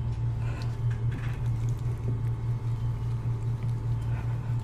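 Wire whisk stirring a lump of peanut butter into thick pancake batter in a glass bowl: faint, irregular wet stirring strokes. A steady low hum runs underneath.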